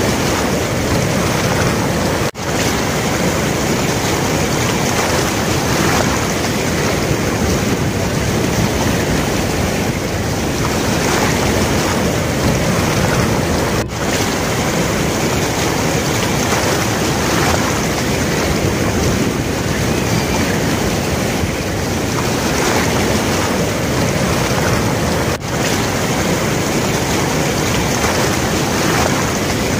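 Steady loud rushing noise of fast-flowing floodwater on a swollen river, mixed with wind buffeting the microphone. The sound briefly cuts out three times.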